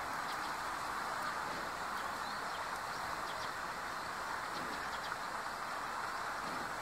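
Scattered short, high chirps of Eurasian tree sparrows over a louder, steady rush of background noise.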